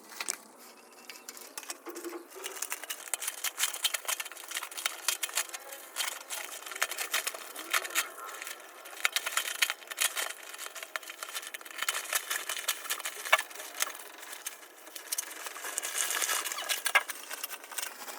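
A parcel being unpacked by hand: rapid, irregular crackling and rustling of cardboard, tape and wrapping, with scattered sharp clicks.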